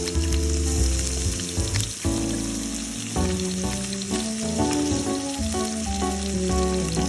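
Background music with changing melody notes, over a steady, even hiss.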